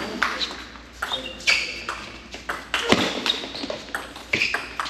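Table tennis rally: the ball clicks sharply off the paddles and the table, about two strikes a second, some with a short ringing ping.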